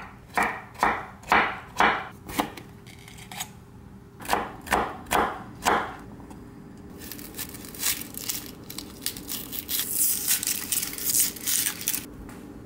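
Chef's knife dicing vegetables on a wooden cutting board, about two strokes a second in two short runs. Then, from about halfway, the dry crinkling of papery onion skin being peeled off by hand.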